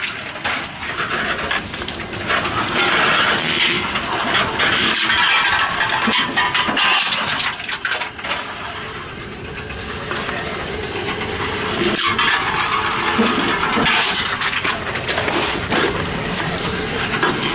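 Aluminum cans being fed one after another into a Tomra 42 reverse vending machine, with irregular metallic clattering and clinking as the machine takes them in, over a steady mechanical hiss.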